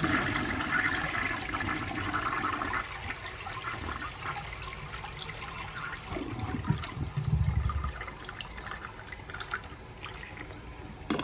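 1957 Eljer Waco toilet flushing weakly, a really sad flush: a rush of water for about three seconds that fades into trickling, with a brief low gurgle about seven seconds in.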